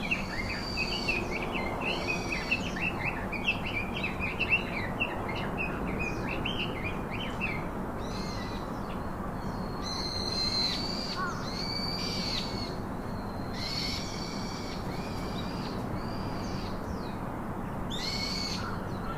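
Birds calling: a quick run of short high chirps for the first several seconds, then a series of separate longer calls, each about a second, repeated every second or two. A steady low background noise runs underneath.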